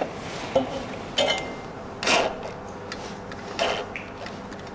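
Metal parts of an IKEA MACKAPÄR shoe rack scraping, rubbing and clicking together in short irregular bursts as they are pressed and worked by hand, with one longer scrape about two seconds in: a stiff joint that will not seat flush.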